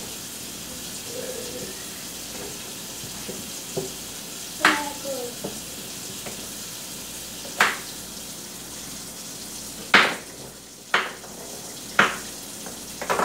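Kitchen knife chopping carrots on a cutting board: about six sharp single chops spaced a second or two apart, over a steady hiss.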